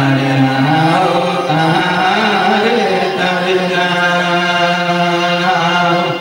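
Man chanting a Karam song into a microphone, in long held and sliding notes.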